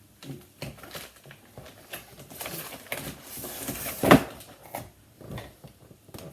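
Cardboard and plastic packaging being handled: irregular rustling and small clicks, with a sharp knock about four seconds in.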